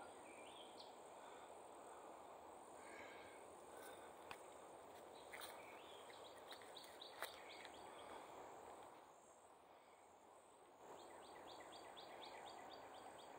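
Near silence of open woodland: faint bird calls trill now and then over a thin, steady high insect hum. There are a couple of faint clicks, and the sound drops away almost entirely for a couple of seconds past the middle.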